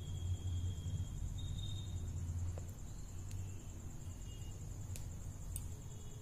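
Quiet background: a steady high-pitched insect trill over a low rumble, with a few faint ticks in the second half.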